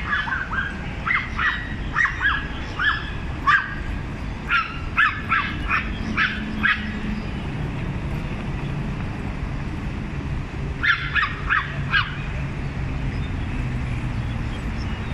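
Small Pomeranian-type dogs yapping in short, high-pitched barks, in bursts: a run of yaps through the first four seconds, another around five to seven seconds, and a quick string of four yaps at about eleven seconds. They are the small dogs barking at a bigger dog.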